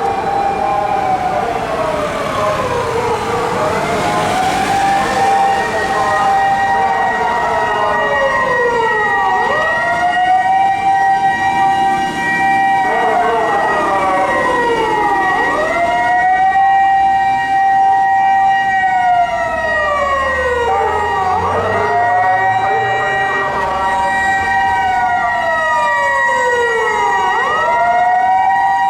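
Mechanical motor sirens of two fire engines, a water tanker and a pumper, wailing: each climbs quickly, holds its top note for a couple of seconds, then falls slowly, repeating about every six seconds and out of step with each other. From a few seconds in, a steady high tone sounds alongside them.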